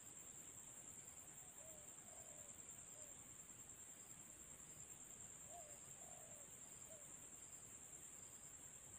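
Faint outdoor ambience: a steady high-pitched insect buzz, with a bird calling two short phrases of three notes each, about two seconds in and again about five and a half seconds in.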